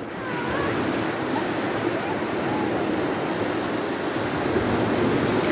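Sea surf breaking and washing up the shore: a steady rush of waves that swells a little louder just after the start.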